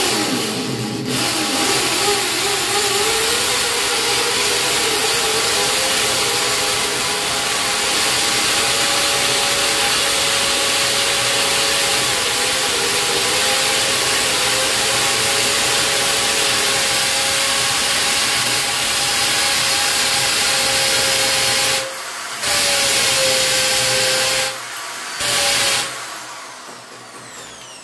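Corded electric drill running with its bit boring into a glazed ceramic wall tile: a steady motor whine over the grinding of the bit, dipping slightly in pitch as it bites. It runs for over twenty seconds, stops briefly, runs again for about two seconds, gives one short burst and then stops shortly before the end.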